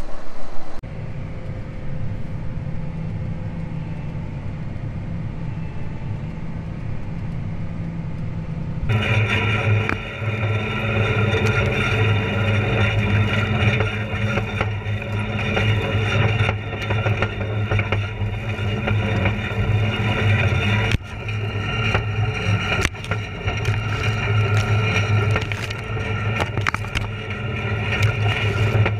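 Tractor with a PTO-driven WeedZapper generator running through a weedy soybean field: a steady low hum, which about nine seconds in becomes louder, with higher steady tones over it. Scattered scrapes and clicks come as weeds brush past the machine and camera.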